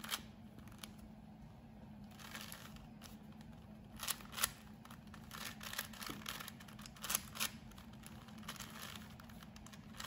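Plastic 4x4 speed cube being turned by hand: a series of quick clicks and scraping rattles as its outer and inner layers are given double turns while working through the 4x4 edge parity algorithm.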